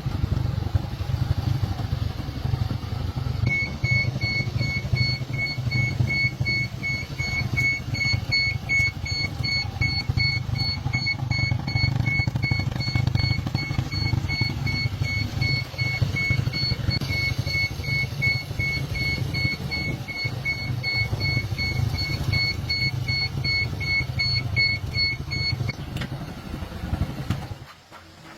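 Small motorcycle engine idling steadily, with a rapid, evenly repeating electronic beep running over it for most of the time. The engine cuts off near the end.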